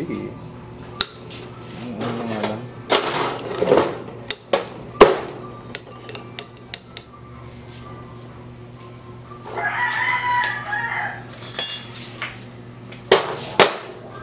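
Scattered sharp metal clinks and knocks of engine parts and tools being handled, with a rooster crowing once about two-thirds of the way through.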